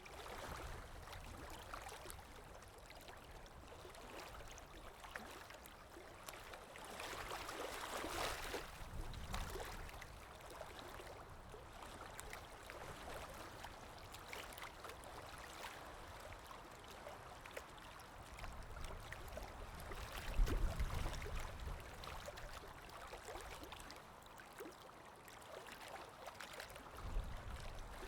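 Small waves lapping and sloshing against a shore, in irregular swells, with wind blowing. Low rumbling gusts are loudest about twenty seconds in and again near the end.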